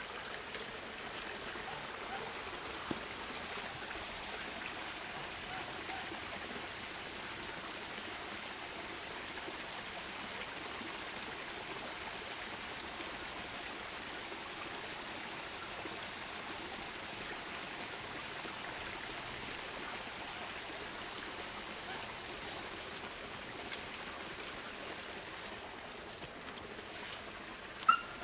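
Steady, even rushing of running water, unchanging throughout.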